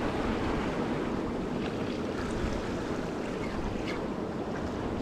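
Sea surf washing against and around the rocks of a jetty: a steady rush of breaking waves, with a few faint clicks over it.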